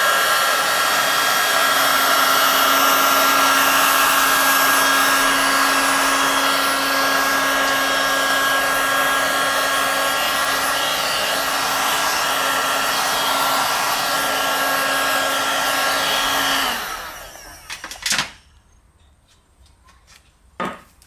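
Electric heat gun (paint stripper) blowing steadily, a rushing hiss with a steady hum and high whine, switched off about three-quarters of the way through and running down. Two short knocks follow, one shortly after it stops and one near the end.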